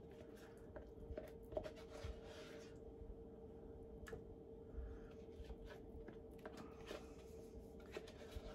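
Faint scraping and light clicks of a spatula scooping thick Greek yogurt out of its container, in short spells over a steady low hum.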